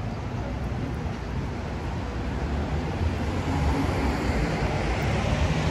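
Road traffic noise from passing vehicles: a steady low rumble and rush of tyres and engines that grows louder about three seconds in, as a vehicle comes closer.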